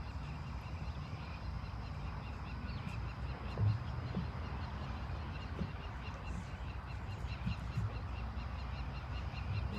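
Steady low hum of room noise with a few faint thumps and shuffles.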